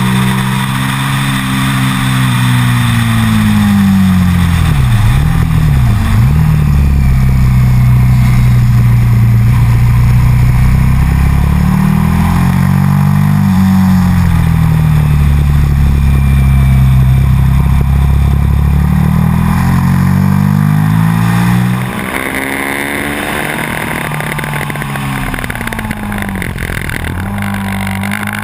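Sport motorcycle engine heard from an onboard camera at track speed: the revs climb and fall through the gears and dip sharply with quick blips on braking, over steady wind and road noise. Near the end the sound drops suddenly in level.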